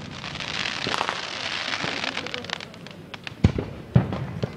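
Aerial fireworks display: a dense crackle of popping stars for about three seconds, then two sharp bangs about half a second apart near the end.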